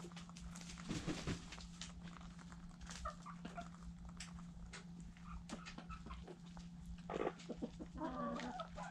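Hens clucking and calling while pecking at scattered feed, with many sharp ticks of beaks on the ground and a longer call near the end. A steady low hum runs underneath.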